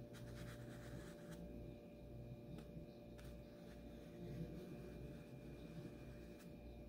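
Paintbrush loaded with paint stroking across a canvas: faint, soft scratchy brush strokes, most noticeable in the first second or so, with a few light taps later, over a steady low hum.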